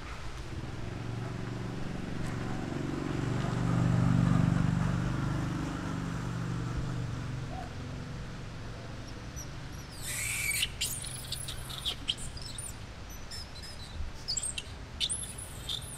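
A motor vehicle passing, its low engine rumble swelling to a peak about four seconds in and fading away. From about ten seconds in comes a run of quick, high chirping squeaks.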